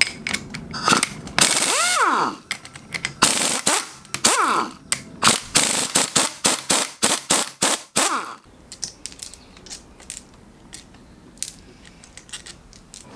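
Cordless impact driver hammering in three bursts, its motor whine falling away after each, as bolts on a differential are run down. After that, quieter scattered clicks of metal parts being handled.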